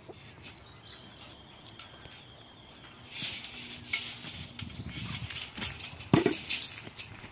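Steel rebar rods being dragged and handled on dry ground, scraping and rattling against each other, starting about three seconds in, with one louder sudden knock about six seconds in.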